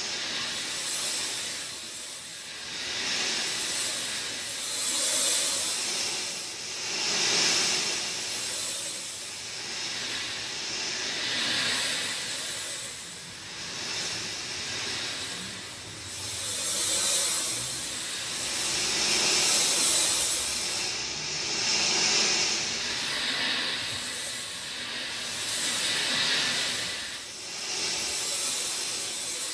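Steady rainfall, a dense hiss that swells and eases every few seconds.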